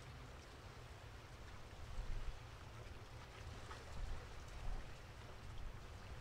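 Faint outdoor ambience in light rain: a low steady rumble with wind buffeting the microphone in a few gusts, about two seconds in and again around four seconds, and a few faint ticks of raindrops.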